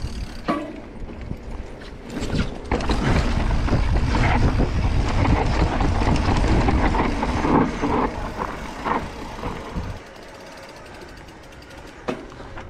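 Mountain bike descending a dirt singletrack: wind rushing over the microphone, tyre rumble on the dirt and the rattle and clatter of the bike over bumps. The rushing drops away suddenly about ten seconds in, leaving a much quieter rattle.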